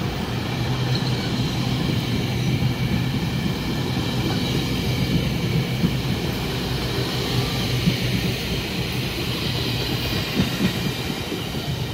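GO Transit commuter train, MP40PH diesel locomotive with bilevel coaches, pulling out and running past on the rails with a steady low hum and some wheel clatter. The sound eases off slightly near the end as it moves away.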